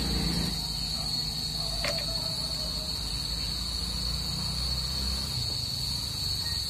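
Steady high-pitched drone of insects chirring. A low rumble underneath fades out about five seconds in.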